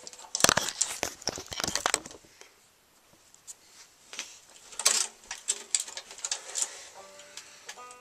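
Handling noise from a person moving about close to the microphone: a quick run of knocks and thumps in the first two seconds, then a quiet stretch and scattered clicks and scuffs. A few faint banjo string notes sound near the end.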